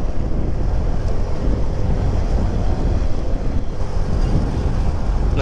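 Steady wind buffeting the microphone of a moving Honda Click 125 scooter, a dense low rumble, with the scooter's engine running underneath.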